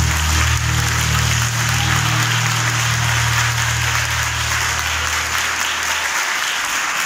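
Audience applauding with a dense patter of many hands clapping. Underneath runs a low steady hum that cuts off about six seconds in.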